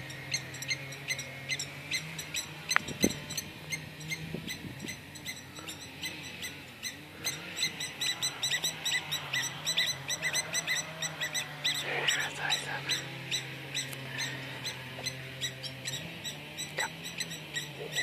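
Lapwings (kiewiets) calling in alarm: a rapid string of short, sharp, high calls repeated many times a second, thickest in the middle. They are the adults' defence calls at an intruder near their chick.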